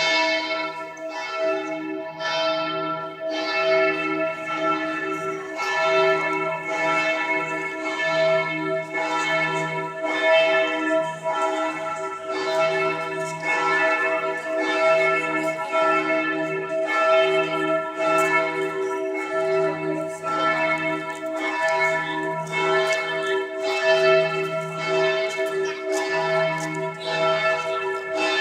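Church bells of St. Stephen's Cathedral (Stephansdom) ringing: several bells pealing together, their strokes overlapping in a continuous, steady ring.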